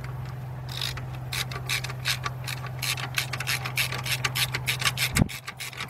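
Ratchet on a long extension clicking rapidly, starting about a second in, as it runs down the 10 mm hold-down bolt of a camshaft position sensor. A steady low hum runs underneath and cuts off near the end.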